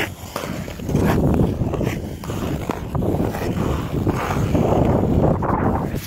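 Ice skate blades scraping and gliding over a frozen pond's ice: a rough, continuous scraping that grows louder from about a second in and comes in a few long surges, like successive strides.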